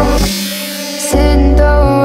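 Electronic background music with heavy bass. The bass and beat drop out briefly just after the start and come back in about a second in.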